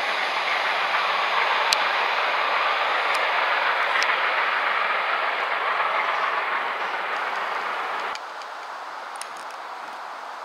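Passenger coaches of a steam-hauled train running by at speed: a steady rush of wheels on rail with a few sharp clicks. About eight seconds in the sound drops suddenly to a quieter, even rush.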